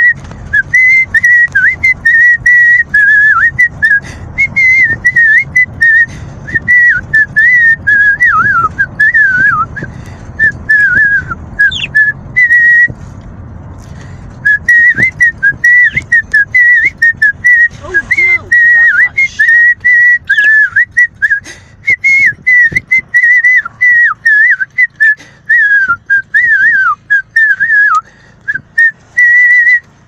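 A person whistling a wandering tune in short warbling phrases, with a short pause about 13 seconds in, over a low rumble that dies away after about 23 seconds.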